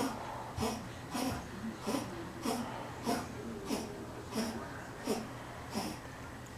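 A pet sneezing and snorting in a rapid, rhythmic fit, about ten sharp wheezy sneezes, roughly one every two-thirds of a second, stopping near the end; the owner puts the fit down to allergies.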